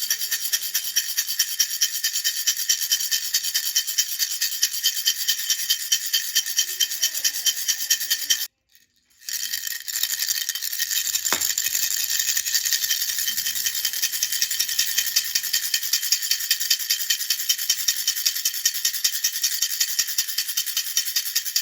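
Baby rattle shaken in a fast, even rhythm, about four to five shakes a second, a bright hissing rattle. It cuts out briefly near the middle, then resumes.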